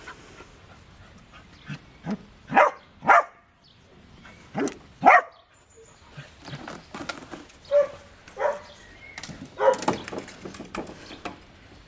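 Corgis barking while they play: a string of about a dozen short barks at uneven intervals, the loudest in the first half.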